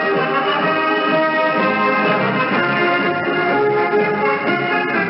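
Orchestral music with brass, heard over a shortwave radio broadcast, so the sound is narrow with no high treble.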